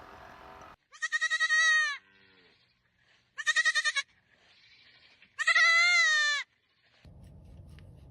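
A young farm animal bleating three times, each call about a second long, high-pitched and quavering.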